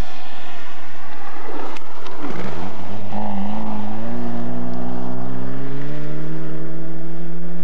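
Ford Escort rally car passing at speed. Its engine note drops as it goes by with a brief rush of noise, then climbs steadily as it accelerates away.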